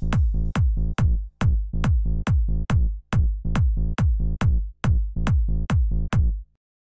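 Electronic background music: a deep kick-drum beat, each kick dropping in pitch, about two beats a second, stopping abruptly near the end.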